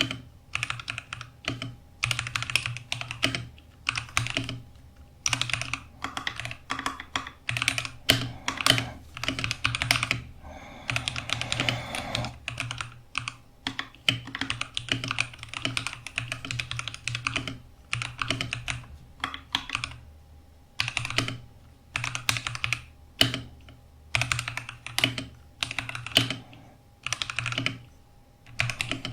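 Typing on a Keychron V4 mechanical keyboard: quick runs of key clicks and clacks in bursts of a second or two, with short pauses between words.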